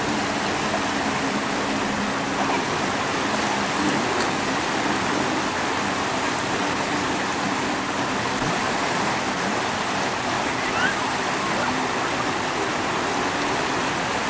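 Small sea waves washing in over shallow water at the shore, a steady rushing noise.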